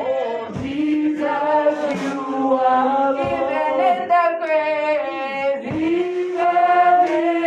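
Voices singing a slow praise chorus, with long held notes that slide between pitches.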